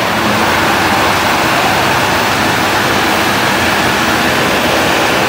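Vehicle engine running steadily and loudly close by, under load as it is hauled with a rope over the rough road.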